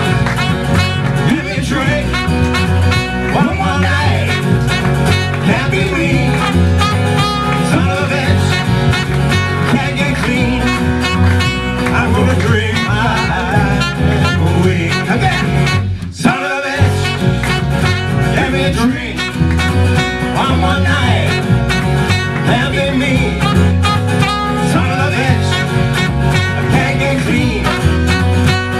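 Live acoustic band playing: upright double bass, strummed acoustic guitar and trumpet, with a man singing. The band stops briefly about halfway through, then comes back in.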